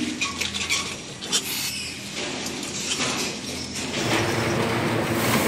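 Scattered knocks and rattles of steel farrowing-pen rails as piglets are handled for injection. About four seconds in, a steady, louder drone sets in.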